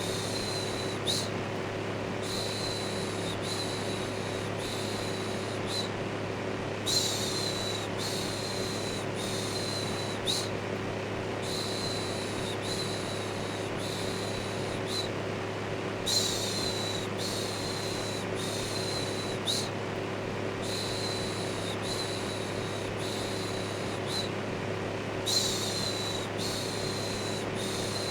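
Steady electric fan whirring with a low hum, overlaid with a looped 'shhh' shushing. The shushes come in runs of several, each about a second long, with short pauses between runs.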